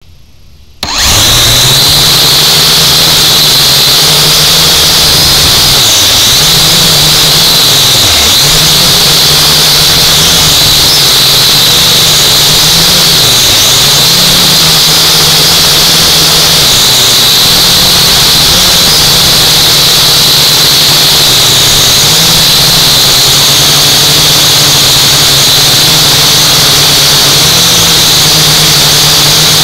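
UDI U818A toy quadcopter's motors and propellers, heard close from the onboard camera, spinning up about a second in and then running as a loud steady high whine over a lower buzz whose pitch dips and rises again several times.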